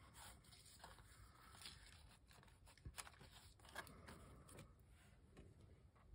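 Near silence, with faint rustling of a kraft paper bag and a few soft taps as it is handled and laid down on a cutting mat.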